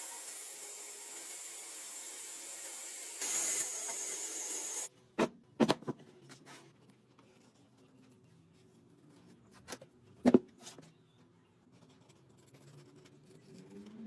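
Woodworking workshop noise: a steady hiss with a faint high whistle, louder briefly, cuts off abruptly about five seconds in. Then come a few sharp wooden knocks, three close together and two more about four seconds later.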